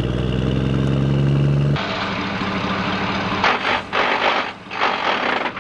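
Heavy truck engine sound effect: a steady low drone that cuts off abruptly about two seconds in. It gives way to a rougher, noisier rumble that swells several times.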